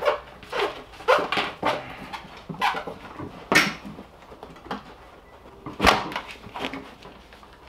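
Seat upholstery fabric and its stiff plastic backing piece rustling, scraping and knocking against the metal seat frame as they are pushed and worked into place, in irregular bursts with two sharper knocks about three and a half and six seconds in.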